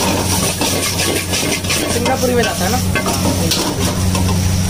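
Chowmein stir-frying in a wok: the noodles sizzle while a long-handled metal spatula scrapes and clicks against the pan again and again. A steady low hum runs underneath.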